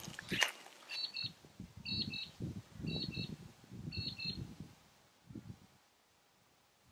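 Footsteps through dry grass and brush, about one slow step a second, four steps, each with a faint high double squeak. The steps stop about four and a half seconds in.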